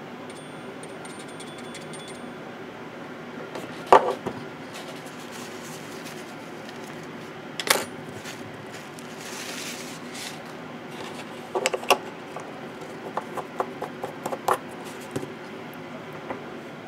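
Scattered small clinks and knocks of glass paint jars and a metal airbrush being handled and set down on a workbench, the loudest about four seconds in and a run of lighter clicks after the middle, over a steady background hum.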